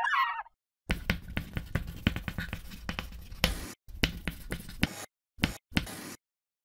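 Pencil scratching on paper in quick, uneven strokes with a few brief pauses, stopping about six seconds in. A short pitched sound trails off in the first half second.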